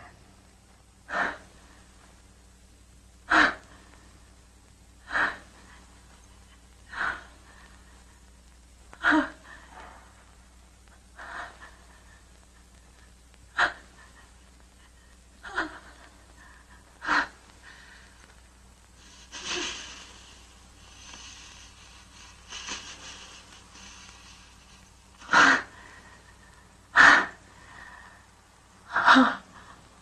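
A person's short wheezing gasps, repeating about every two seconds, with a stretch of hiss about twenty seconds in.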